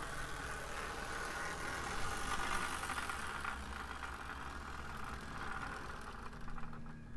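Athearn HO scale F7A model locomotive's DC motor and gear drive whirring steadily as it runs along the track, with its wheels rolling on the rails; the sound thins out near the end.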